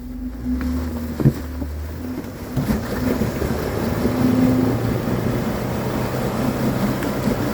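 Jeep Wrangler engine running under load as the Jeep tries to climb a rock, getting louder over the first few seconds, with one sharp knock about a second in. The Jeep is hung up with its differential hitting the rock.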